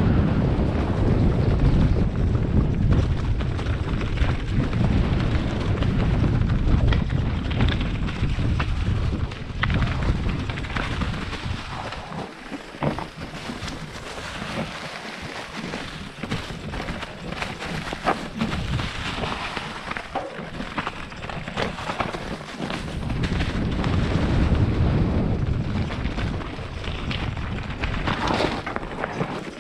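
Wind buffeting the microphone on a downhill mountain bike, with tyres crunching over dry leaves and dirt and short rattles and knocks from the bike over bumps. The wind rumble eases off through the middle and builds again near the end.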